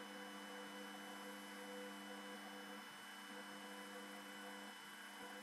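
Faint steady hum made of several even tones over light hiss.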